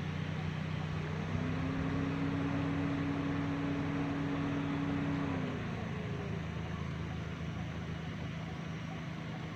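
Steady low mechanical hum, with a higher steady tone that comes in about a second in and fades out about five and a half seconds in.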